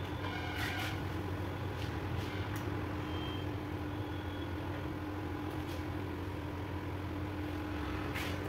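A steady low mechanical hum with a few light, sharp clinks, like tools touching metal.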